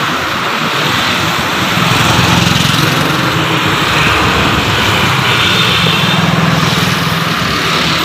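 A small electric motor runs steadily with a loud rush of air, a low hum under a hissing whoosh. It gets a little louder about two seconds in.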